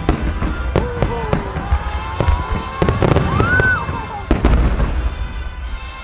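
Aerial firework shells bursting in quick succession, a rapid run of sharp booms and cracks over a low rumble. The bursts thin out after about four and a half seconds.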